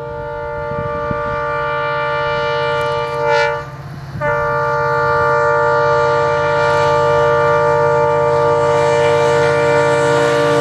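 EMD diesel locomotive sounding its multi-tone air horn in two long blasts, broken briefly about three and a half seconds in, over the steady rumble of its engine, growing louder as the train approaches.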